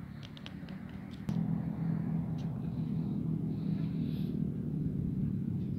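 Low, steady engine rumble that gets louder about a second in, with a few light clicks before it.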